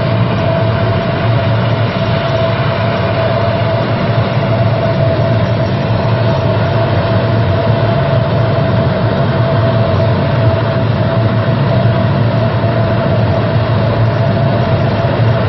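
C-130 Hercules turboprop aircraft running on the ground: a loud steady drone with one steady high whine over it.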